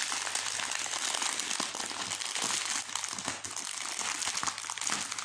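Clear plastic wrapping crinkling and crackling continuously as hands pull it open and unwrap it from a rolled canvas.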